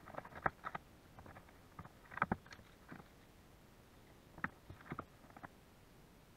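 Scattered short clicks and knocks of fishing gear being handled in kayaks, coming in three small clusters with quiet between.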